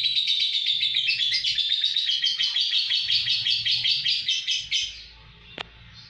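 A lovebird singing: a long, unbroken run of rapid high chirps, about ten a second, that stops about five seconds in. A single sharp click follows shortly after.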